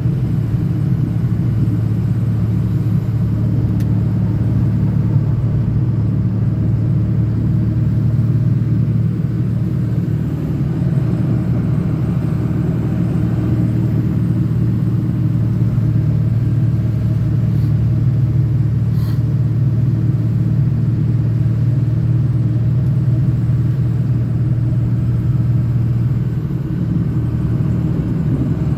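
Diesel truck cruising, heard from inside the cab: a steady low engine and road drone.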